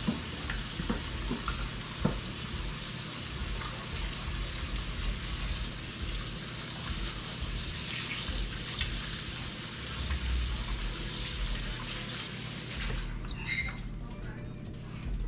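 Kitchen faucet running steadily as hands are rinsed of raw meatloaf mix under it. The water is shut off suddenly about thirteen seconds in, followed by a brief knock.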